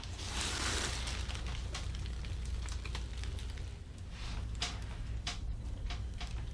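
Faint rustling and several short, sharp clicks over a low steady hum.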